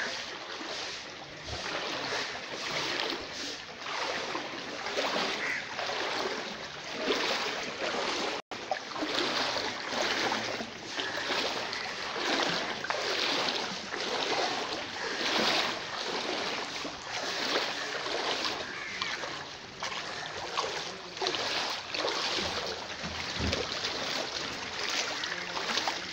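Floodwater sloshing and splashing around wading legs, surging in a steady rhythm of about one stride a second as someone walks through calf-deep water.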